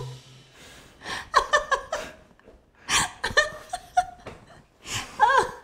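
Laughter in several short bursts with pauses between them.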